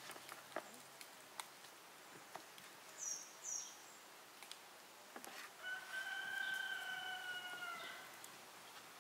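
A rooster crowing once, a single long call of about two seconds starting a little past halfway. Before it come two short high chirps and scattered light clicks.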